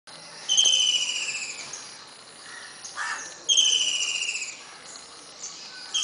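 Woodpecker calling: two rapid rattling calls, each falling in pitch and lasting about a second, about three seconds apart, with a third beginning near the end.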